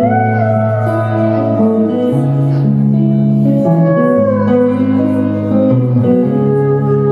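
Live band playing an instrumental passage of a folk-country song: electric guitar and keyboard, a lead line bending in pitch over held low chords.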